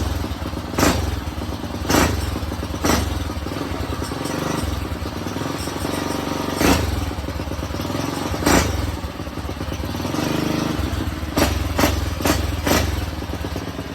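A small motorbike's engine running steadily, with about nine sharp thumps and clatters at irregular intervals, several in quick succession near the end.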